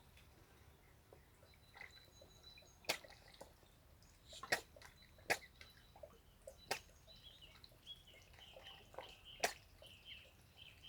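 A duck sneezing: about five short, sharp snorts spaced a second or more apart.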